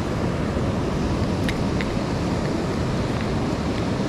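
Steady wind rumble on the microphone over the wash of ocean surf, with two faint clicks about a second and a half in.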